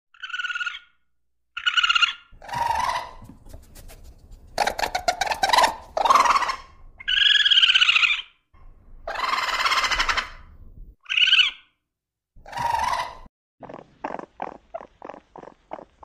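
Raccoon vocalizing: a series of short squealing and screeching calls, then from near the end a quick run of short chittering pulses, about three a second.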